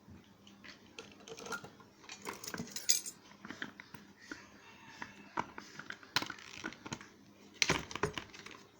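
Small metal tools and parts being handled on a workbench during a car-speaker voice-coil repair: an irregular run of sharp metallic clicks and taps, the loudest about 3 seconds in and again near the end.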